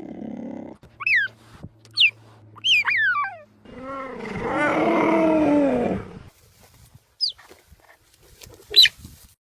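Dinosaur creature sound effects made partly from monkey calls. Several short, shrill, sweeping chirps come in the first few seconds, then a longer and louder lower call from about four to six seconds in, then two more short high chirps near the end.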